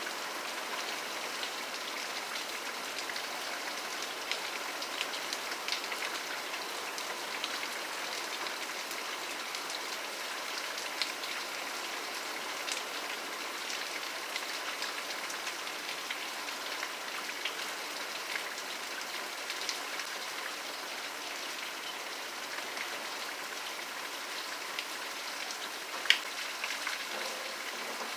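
Steady rain falling, with scattered individual drops ticking sharply on a surface and one louder drip near the end.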